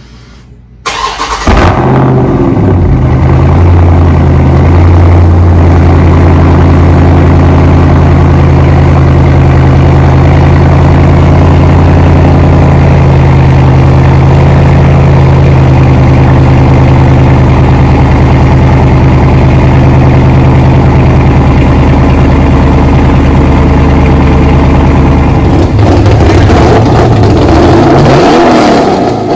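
Dodge Charger Scat Pack's 6.4-litre HEMI V8 with its mid muffler deleted, starting about a second in with a loud flare and then settling into a steady, loud idle. Near the end a different engine takes over: a Porsche 911 (993) RS 3.8 flat-six with a Soul Performance exhaust, revving up as the car pulls away.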